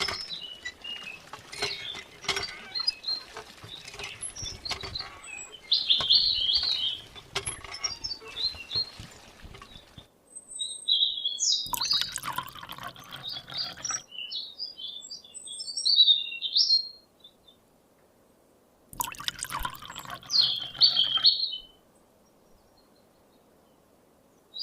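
Small birds chirping in short high calls, over stretches of clattering, splashy noise that start and stop abruptly; the sound cuts out to silence twice near the end.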